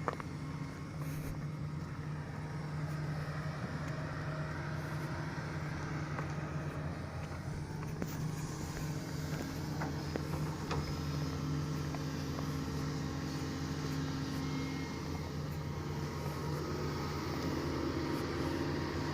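Diesel engine of heavy earthmoving machinery running steadily, with a few light clicks.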